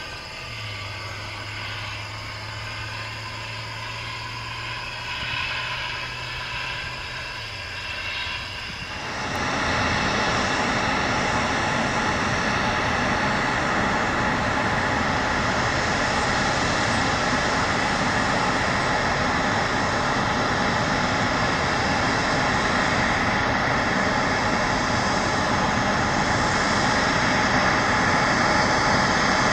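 Airbus A320 airliner on final approach with its landing gear down. Its jet engines make a loud, steady rushing drone with a whine. The drone starts suddenly about nine seconds in, after a quieter stretch with a low steady hum.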